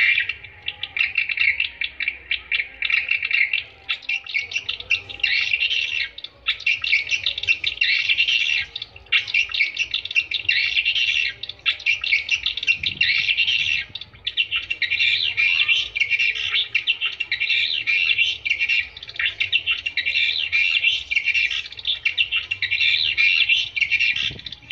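Swiftlet calls: a dense, continuous twittering of rapid chirps with only brief breaks, the kind of call played to lure edible-nest swiftlets to a swiftlet house.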